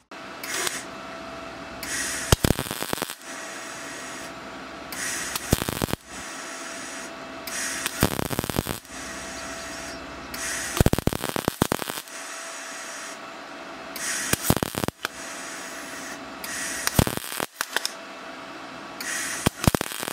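Gas-shielded MIG welder arc crackling as 2.5-inch exhaust tubing is welded to a truck exhaust manifold. It goes in short runs of a second or two with brief pauses between, with sharp pops along the way, and a steady faint whine underneath.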